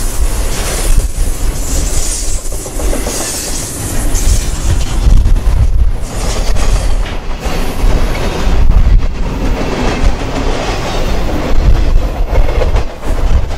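Loaded double-stack container well cars of a freight train rolling past close by: a loud, steady rumble of steel wheels on rail, with repeated clicks as the wheels pass over the track.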